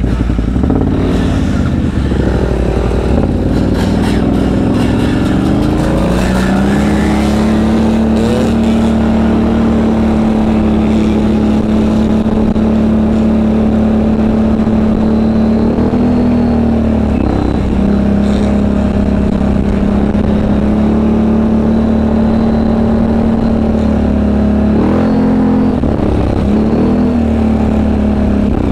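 ATV engine pulling away, its pitch rising over a few seconds, then holding a steady note at riding speed, easing off briefly twice before picking up again.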